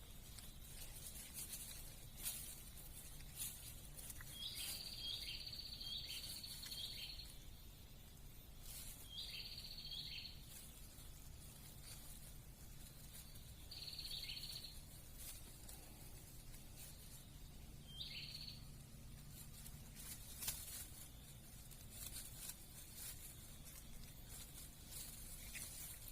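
A high, buzzy trilled animal call from the surrounding forest, heard four times: a long one of about three seconds, then shorter ones, the last under a second. Scattered faint clicks and knocks sound throughout, over a quiet outdoor background.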